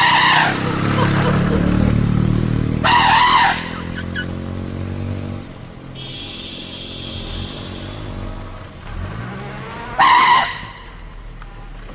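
A vehicle engine running and revving, its pitch rising and falling, with three short, loud, shrill bursts over it: one at the start, one about three seconds in and one about ten seconds in.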